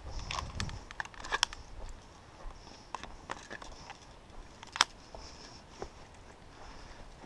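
Footsteps and light crackling over dry leaves, twigs and forest litter, with scattered small clicks that thin out after the first couple of seconds, and one sharp click a little under five seconds in.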